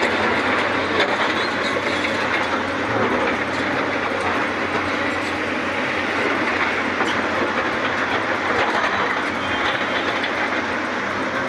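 Heavy machinery working: tracked excavators' diesel engines running with rattling and clanking. The noise is loud and steady throughout.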